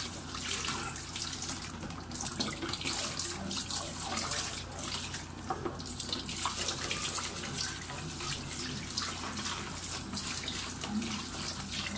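Tap water running and splashing onto an electric-fan blade as it is rubbed clean by hand under the stream, with uneven splashes as the hands move.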